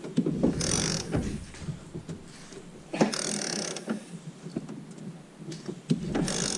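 Socket ratchet wrench clicking in three short bursts a couple of seconds apart, with scattered clicks of tool on metal between, as a bolt that is too tight is worked on the engine.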